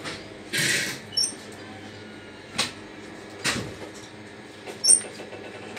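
Coins and cash being handled at a shop till: a short rustle, then a few sharp clicks and two bright metallic clinks, the second the loudest.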